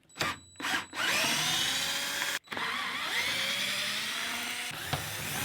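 Espresso machine steam wand hissing as it froths milk for a cappuccino: two short puffs, then a long steady hiss with a brief break partway through.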